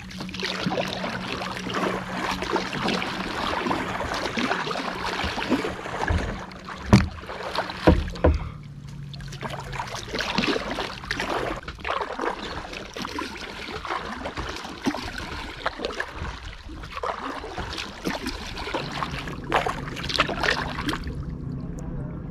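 Kayak paddling: a double-bladed paddle dipping and splashing in lake water, stroke after stroke. Two sharp knocks come about seven and eight seconds in, and a faint steady low hum runs underneath at times.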